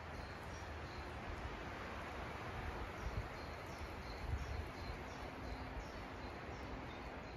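Small birds chirping repeatedly in woodland, short high calls over a steady rushing background noise with a low rumble.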